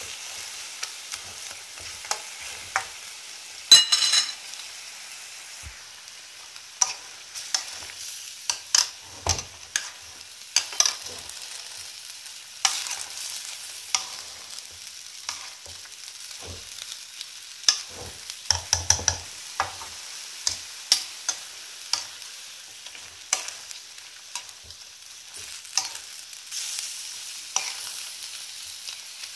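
Chicken pieces sizzling as they sauté in hot oil in a metal kadhai over high heat, while a metal spoon stirs and scrapes against the pan in frequent short knocks. One louder, ringing metallic clang comes about four seconds in.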